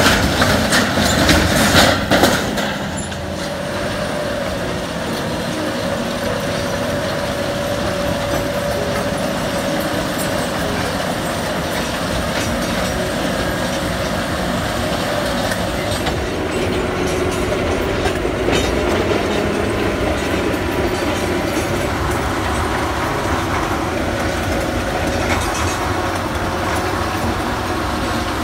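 A heavy vehicle running steadily, a continuous mechanical drone with a faint wavering whine over it, louder and rougher for the first couple of seconds.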